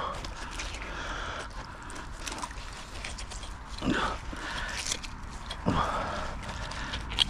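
Gloved hands pulling a muddy metal find off a fishing magnet: a few scattered scrapes and knocks, the sharpest near the end.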